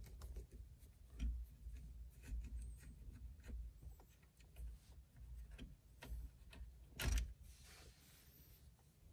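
Faint small clicks and scrapes of a Phillips screwdriver backing a small screw out of the turn signal lever mechanism at the top of a steering column, with one sharper click about seven seconds in.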